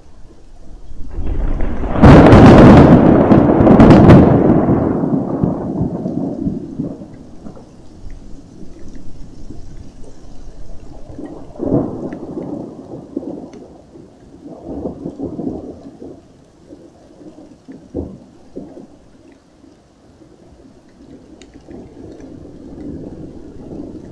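A close thunderclap from the highveld storm: a rising rumble that breaks into two sharp cracks about two and four seconds in, then a long low rumble dying away. Quieter rolls of thunder follow several times.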